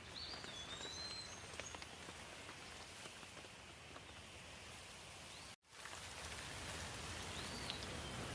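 Steady rain with scattered drips pattering on surfaces, and a thin whistled call heard faintly near the start and again near the end. The sound cuts out completely for an instant about two-thirds through.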